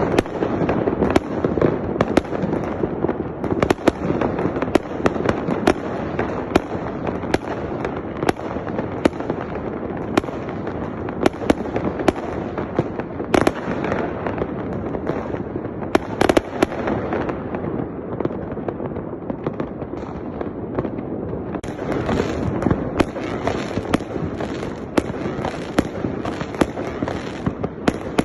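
Fireworks display: many sharp bangs and crackles in quick, irregular succession over a steady rumble. The bangs thin out past the middle and grow dense again near the end.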